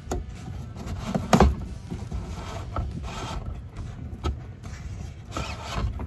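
Rubbing, rustling and clicking of wiring and plastic interior trim being handled and fed through the headliner, with one sharper knock about a second and a half in.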